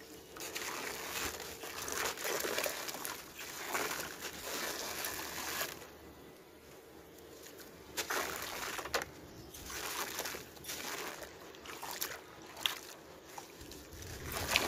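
Molded sand-and-cement balls crumbled by hand over a basin of muddy water: gritty sand pouring and trickling into the water in repeated swells, with wet sloshing and squelching as a soaked chunk is dipped and squeezed. A few sharp crackles come as pieces break off.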